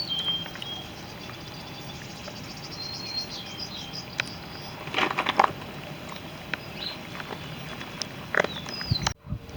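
Small birds chirping and trilling, with a few sharp clicks and two brief louder scuffling noises about five and eight seconds in.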